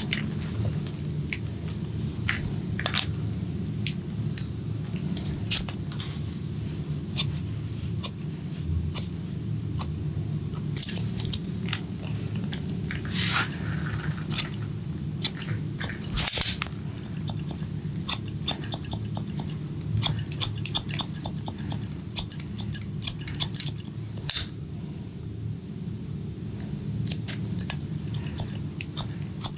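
Barber's scissors snipping hair close to the microphone: quick, irregular crisp clicks and snips over a steady low hum.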